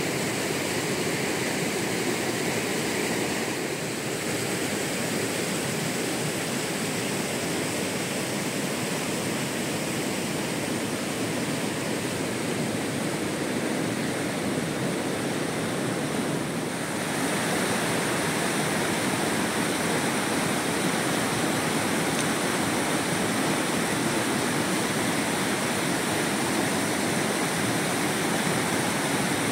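Steady heavy rain, an even hiss with no breaks. It drops slightly about four seconds in and gets a little louder about seventeen seconds in.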